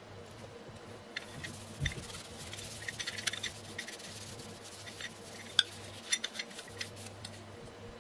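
A paper towel wiping over a bare metal telephone bell gong, cleaning it with cellulose thinners. Scattered rubbing scrapes and small clicks come as the gong is handled, with a dull knock near two seconds and a sharper tap a little past halfway.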